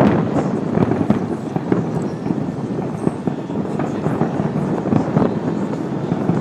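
Fireworks display at a distance: a rapid, continuous run of booms and crackles, with the heaviest bangs right at the start and again about five seconds in.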